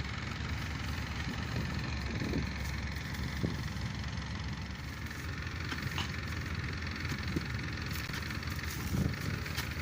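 Excavator's diesel engine running steadily, with a few sharp clicks and knocks over it.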